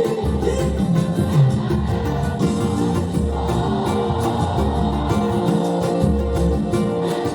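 Pagode music in a passage between sung lines, with a plucked cavaquinho and a bass line.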